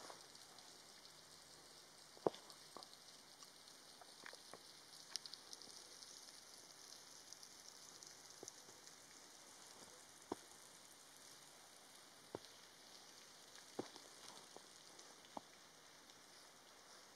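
Near silence in snowy winter woods, with faint high hiss and scattered, irregular soft ticks and crackles, about one every second or two.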